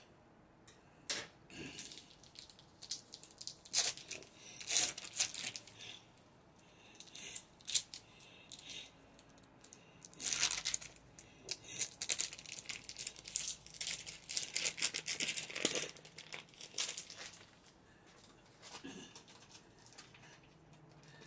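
Foil wrapper of a cream cheese block crinkling and tearing in irregular bursts as it is unwrapped.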